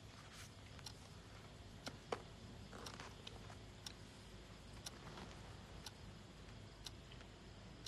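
Near silence: faint room tone with a low hum and a few scattered soft clicks at irregular intervals.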